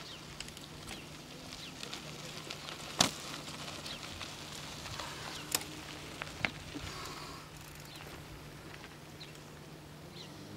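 Outdoor ambience: a steady low hum with a few sharp clicks, the loudest about three seconds in, and faint chirps a little past the middle.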